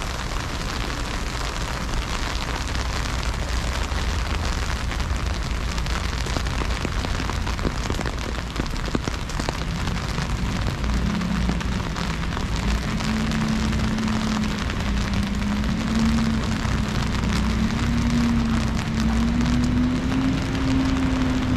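Heavy freezing rain falling steadily, a dense even hiss of drops. About halfway through, a low hum comes in and slowly rises in pitch.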